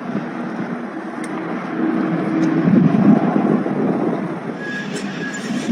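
A train running on the rails, with a thin, high, steady squeal joining near the end.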